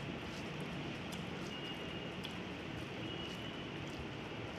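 Fingers squishing and mixing cooked rice with curry on a plate, with faint clicks of the hand against the plate, over a steady background hiss.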